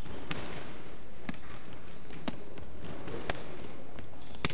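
Amateur boxing bout in an echoing gym: sharp knocks about once a second from gloved punches and footwork on the ring, with the loudest near the end, over the steady hiss of an old videotape recording.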